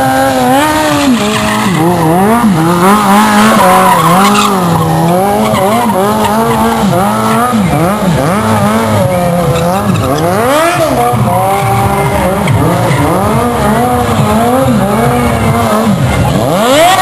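Car tyres squealing in a long, continuous skid, the pitch wavering up and down again and again.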